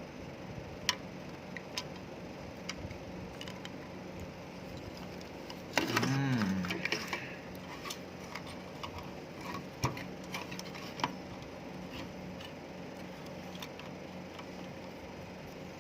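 Small plastic and metal parts of a portable USB fan being handled and worked on by hand: scattered light clicks and taps over a faint steady hum, with a louder noisy stretch about six seconds in.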